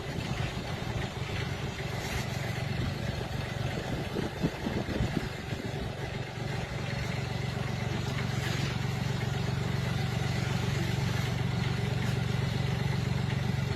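An engine running steadily with a low hum, with a few knocks about four to five seconds in.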